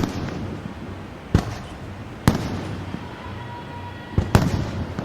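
Aerial fireworks shells bursting at a distance: five sharp bangs, one at the start, two more about 1.4 and 2.3 seconds in, and a quick double bang just after 4 seconds, each trailing off in a rumbling echo.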